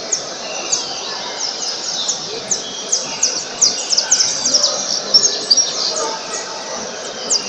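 Saffron finches (canário-da-terra) singing from several cages at once: a dense, continuous run of short, high chirps, each sweeping quickly downward.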